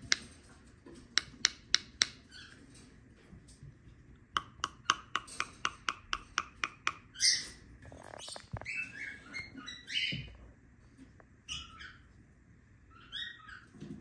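Two runs of sharp clicks, a few a second, in the first half, then a young rosy-faced lovebird giving short chirping calls from about halfway in, with a few more calls near the end.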